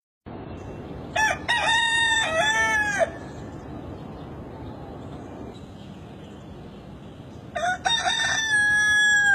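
A rooster crowing twice, each crow lasting about two seconds: one a second in, the other near the end.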